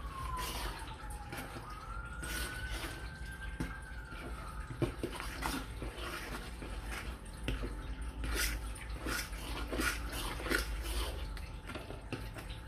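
Fork stirring wet instant mashed potato in a plastic bowl: irregular scrapes, taps against the bowl and wet squelches. A faint wailing tone falls and rises in the background during the first few seconds.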